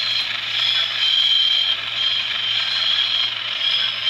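A Graham Farish N gauge Class 37 model locomotive running past with its DCC sound decoder playing the diesel engine sound through a tiny onboard speaker, mixed with the whir and clatter of the model's motor, gears and wheels on the track. The sound is thin and high-pitched, and it swells and dips a little as the locomotive passes.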